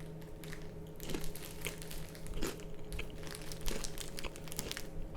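A wrapper being crinkled and crumpled: irregular crackles that grow busier from about a second in, over a steady low room hum.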